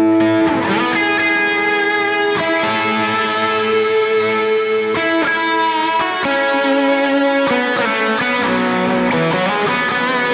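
Electric guitar played through a Line 6 POD X3 Live multi-effects unit: a lead line of sustained single notes with heavy reverb, each note ringing on into the next and changing about once a second.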